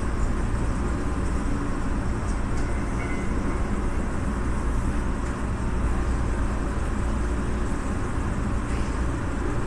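Keihan 7200 series electric train running along the line, heard from just behind the driver's cab: a steady deep rumble of the wheels and running gear on the track.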